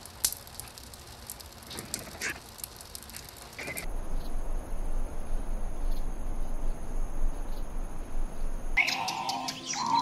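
Small birds chirping in short, scattered calls. About four seconds in, this gives way to a louder, steady noisy background with high, even tones. Birds call again near the end.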